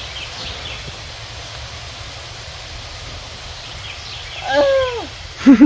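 Mist-system nozzles spraying water over propagation beds with a steady hiss that cuts off near the end. About four and a half seconds in comes a short pitched call, and a brief loud vocal sound right at the end.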